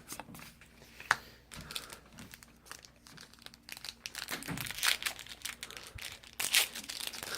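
Foil Yu-Gi-Oh booster pack wrapper crinkling as it is handled and torn open, with irregular crackles that grow busier after a few seconds and a single sharp click about a second in.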